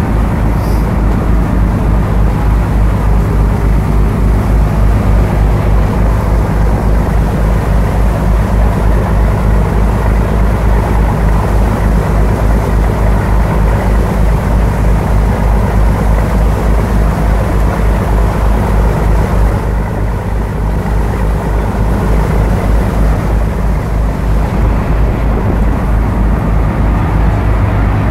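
Fishing boat's engines running steadily underway, a deep pulsing drone, with wind and the rush of the wake's water over it.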